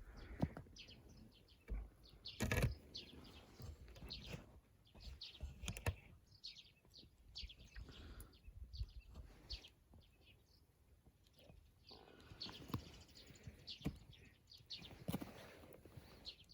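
Small birds chirping in short repeated calls, with scattered sharp clicks and knocks in between.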